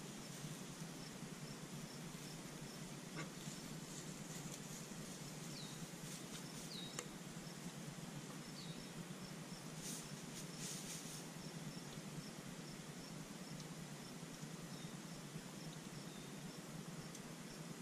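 Faint outdoor ambience of hens foraging in straw: soft scratching rustles, a few short, high falling chirps, and a steady high ticking pulse, about two or three a second, through the middle part.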